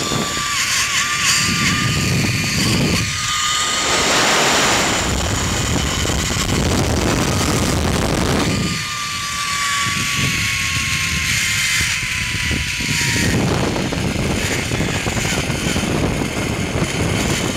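Zip-line trolley pulleys running fast along the steel cable with a thin, high whine, over a steady rush of wind on the microphone. About halfway through, the whine's pitch falls slowly for a few seconds.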